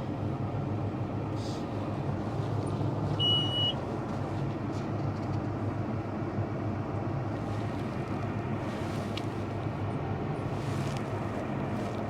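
Farm tractor engine running steadily, with a single short high electronic beep about three seconds in.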